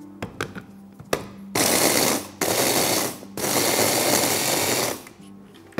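A Kenwood 450 W electric mini chopper is run in three loud pulses, its blades grinding whole biscuits into crumbs. A few clicks come first as the motor unit is seated on the bowl.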